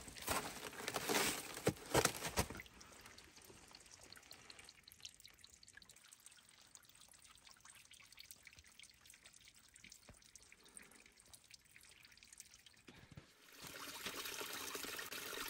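A few sharp knocks in the first couple of seconds, then a quiet stretch, then water trickling, which starts about thirteen seconds in and keeps running steadily.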